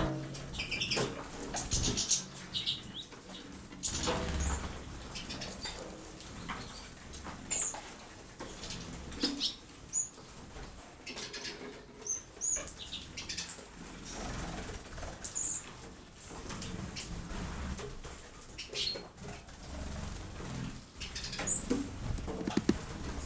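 Small pet birds fluttering and splashing their wings while bathing in water, in repeated short flurries, with scattered brief high chirps.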